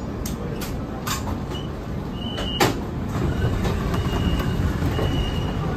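Beijing Subway Line 10 train standing at a platform with a steady low cabin rumble; its sliding doors open, with a loud clunk about two and a half seconds in and short high beeps repeating after it.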